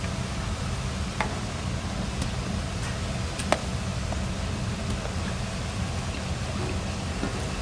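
Restaurant room tone: a steady low hum of ventilation with a few sharp clinks of dishes or utensils, the loudest about three and a half seconds in.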